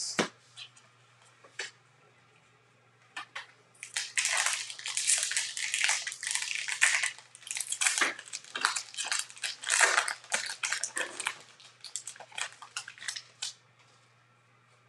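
Foil wrapper of a Bowman baseball card pack crinkling and tearing as it is opened by hand, starting about four seconds in and stopping shortly before the end. A few faint clicks from cards being handled come before it.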